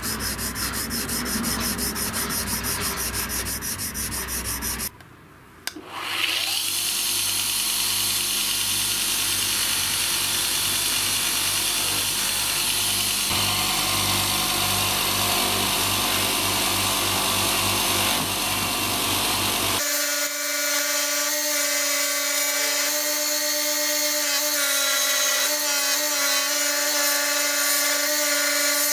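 Quick hand-file strokes scraping a brass hammer head for the first few seconds. After a short break about five seconds in, a bench grinder runs steadily with the brass head held against its abrasive wheel, its hum becoming steadier and more tonal about twenty seconds in.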